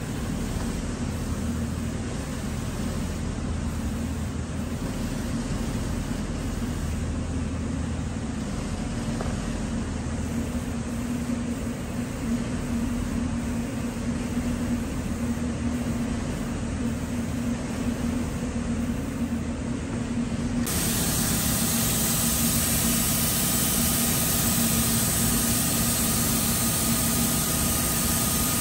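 Steady low hum of the spray booth's ventilation. About twenty seconds in, it cuts abruptly to a louder, even hiss of compressed air from an air-fed paint spray gun.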